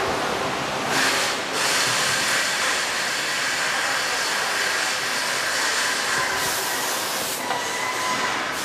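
Steady hissing factory-floor noise with faint high whines running through it, as of fans and machinery running. It swells briefly about a second in.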